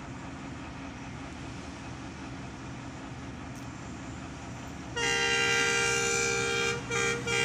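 Steady low rumble of diesel locomotives, then about five seconds in a loud multi-tone diesel locomotive horn sounds one long blast followed by two short toots.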